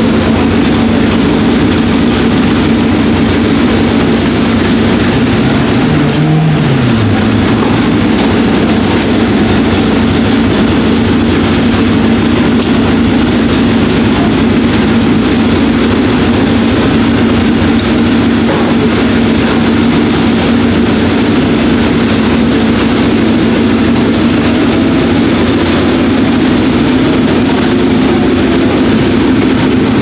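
Racing car engine running at a steady speed, with a short falling tone about six seconds in.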